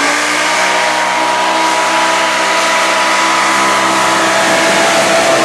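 Modified pulling tractor's engine at full power during a pull, dragging the weight-transfer sled down the track. A loud engine note that has just revved up holds at a steady high pitch.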